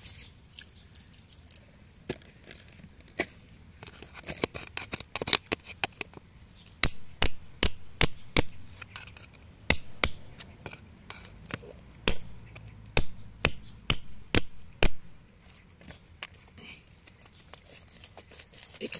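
Steel chisel tapping and scraping against rock and loose gravel: a long run of sharp clicks and knocks that comes thickest and loudest about halfway through, then thins out.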